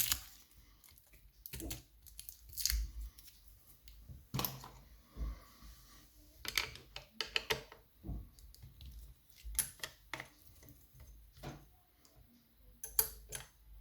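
Irregular small metal clicks, taps and brief scrapes from a jammed lever mortice lock being handled and worked at with picking tools.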